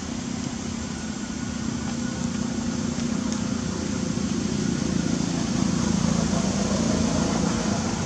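A steady low mechanical rumble, swelling a little past the middle and easing slightly near the end.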